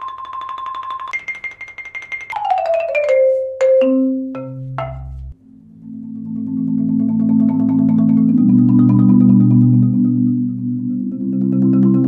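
Marimba One marimba played with hard 0gravity Percussion Jupiter 1 mallets: rolls sweeping down from the upper register to the lowest bars, with a few single low strokes. Then the softest Jupiter mallets, four at once, roll sustained low chords in a slow chorale, the chord changing twice.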